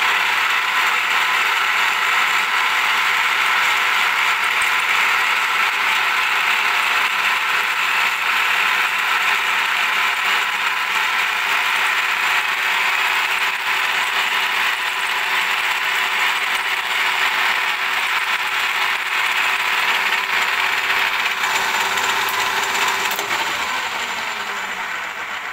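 10 mm end mill in a milling machine cutting 4340 chromoly steel at 900 rpm, half a millimetre deep per pass, tracing a circular groove: a loud, steady cutting noise with a constant whine. It dies away over the last couple of seconds as the cut ends.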